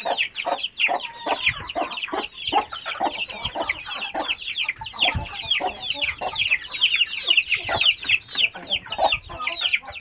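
A brood of about twenty young chicks peeping nonstop, fast high falling chirps overlapping one another, with a hen's lower clucks mixed in.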